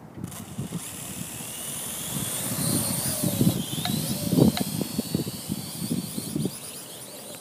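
Parrot AR.Drone 2.0 quadcopter flying, its four electric motors and propellers whining. The whine starts abruptly and its pitch wavers and glides as the motor speeds change. Wind buffets the microphone underneath.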